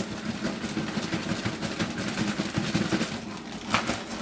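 Hot cooking grease sizzling and crackling in a pan, with one sharper clack near the end.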